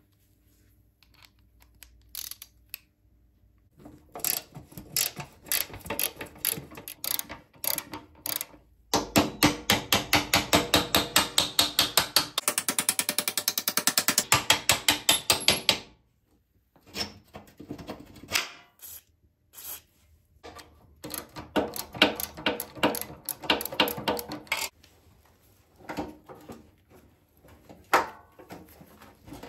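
Socket ratchet wrench clicking in short runs as bolts are undone, with one long, fast run of clicks near the middle.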